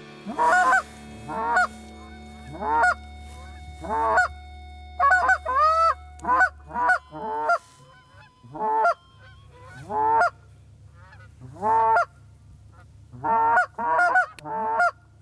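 Goose honking: loud honks roughly once a second, each sliding up and then down in pitch, with several coming in quick succession near the end.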